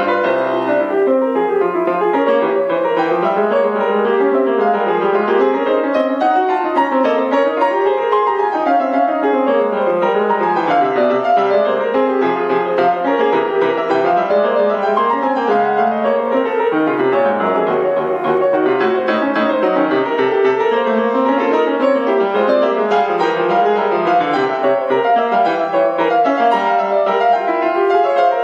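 Grand piano played solo: continuous running passages of fast notes rising and falling without a break.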